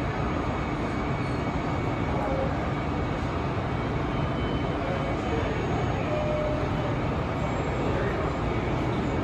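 New York City subway train at an underground station platform, a steady rumble.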